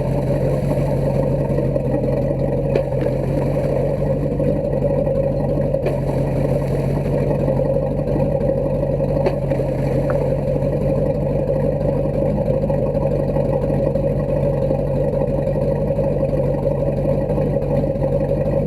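A 2000 Four Winns boat's sterndrive engine running steadily at idle with its outdrive in a water bucket, during a test run of a newly replaced throttle cable. A few faint clicks are heard over the steady hum.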